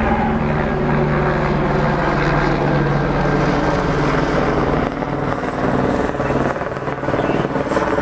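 Helicopter overhead: a steady, loud rotor drone that dips briefly about five seconds in.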